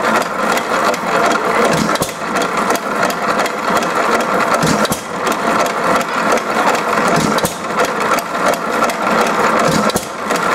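1914 Economy Model D hit-and-miss engine running with its flat belt turning on the pulley: a steady, loud, rapid clatter of sharp mechanical clicks.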